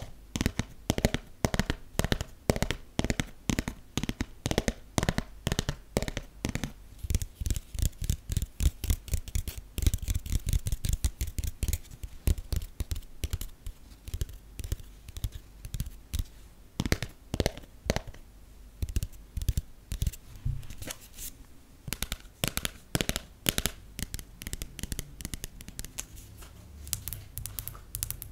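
Fingernails, long acrylic and natural, tapping on a passport's cover and pages: rapid crisp taps several a second, thinning to sparser clusters about halfway through.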